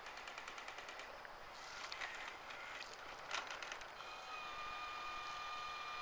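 Toy RC backhoe's small electric motors and plastic gears running as it drives and lifts its loader bucket. A rapid, even clicking comes first, then two sharp clacks, and in the last two seconds a steady whine.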